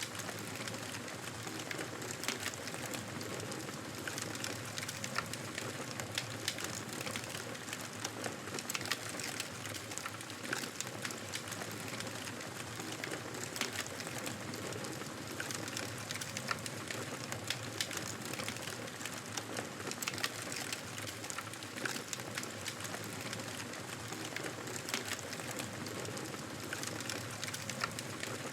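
Wood fire crackling steadily: a soft hiss of burning with many small, sharp snaps and pops scattered through it.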